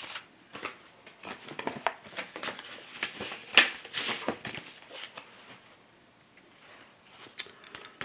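Painted cardstock cards and paper envelopes being handled: a run of short rustles, scrapes and taps as card slides against card and envelope, busy for the first five seconds, a brief lull, then a few more near the end.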